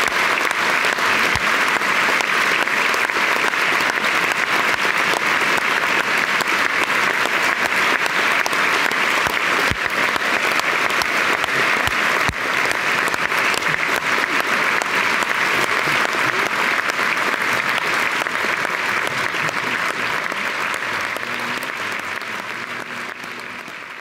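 Large concert-hall audience applauding steadily; the applause fades out over the last several seconds.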